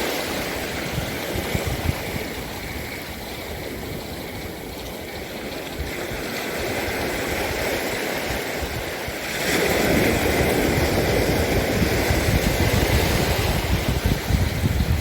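Sea waves washing, in a steady noisy hiss that swells louder about nine and a half seconds in.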